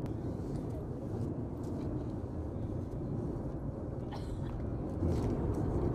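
Erupting La Palma volcano: a steady low rumble from the lava-fountaining vent, with a few faint sharp cracks. It grows louder about five seconds in.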